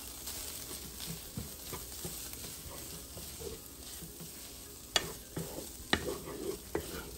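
Wooden spoon stirring and scraping a sardine and onion filling in a nonstick frying pan over a soft, steady sizzle of frying. Two sharper knocks of the spoon against the pan come about five and six seconds in.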